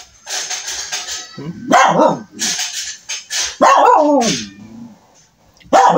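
A dog barking repeatedly in a loud run of calls. Some barks are rough and some are drawn out and slide down in pitch.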